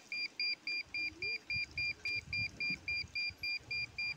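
Handheld Solid satellite meter beeping steadily, about four short high-pitched beeps a second: the meter's tone for a satellite signal being received by the dish.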